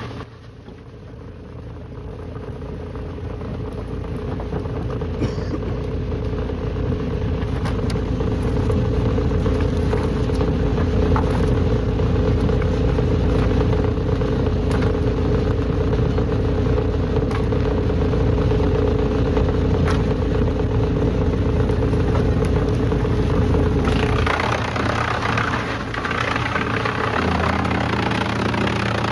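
A heavy engine-driven machine running steadily with a constant hum and low rumble, growing louder over the first several seconds. About 24 seconds in the sound changes to a rougher, noisier running.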